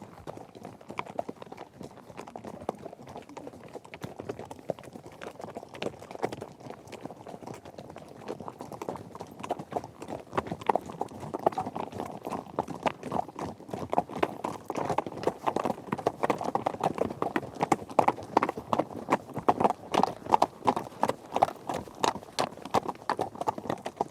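Horse hooves galloping: a rapid, dense clatter of hoofbeats that grows clearly louder about ten seconds in.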